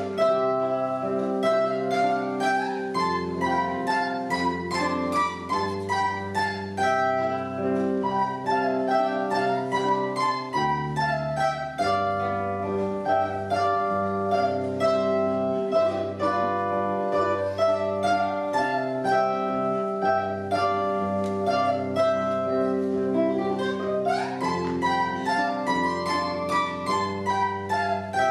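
Zither playing an instrumental piece: a quick run of plucked melody notes over low bass notes.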